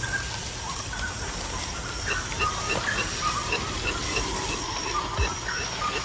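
Tropical rainforest ambience: a steady hiss with a faint high insect hum. From about two seconds in, a short chirp repeats about three times a second, and other short calls come and go.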